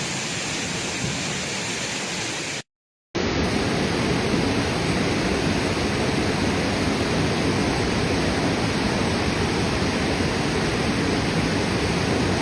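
Steady rush of water, broken by a brief dead silence at an edit about three seconds in, after which a slightly louder rush of water carries on.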